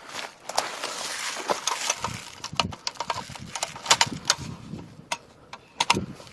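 Footsteps crunching through dry leaves and snapping twigs on the forest floor: an irregular run of sharp snaps and cracks over a rustling crunch.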